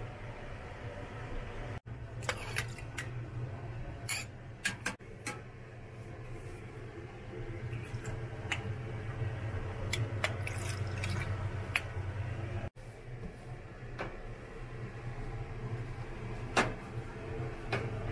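Loquat compote syrup being poured from a pot into a glass jar: liquid pouring and dripping, with scattered small clicks and splashes, over a steady low hum.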